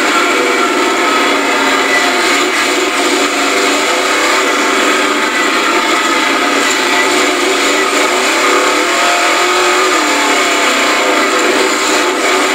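A 4x4 mud truck's engine running hard, heard from inside the cab, its pitch rising and falling as it is revved.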